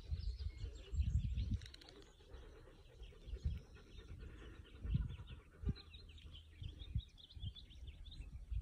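Many small birds chirping in a busy, overlapping chatter, over low rumbles of wind on the microphone that are loudest about a second in and again about five seconds in.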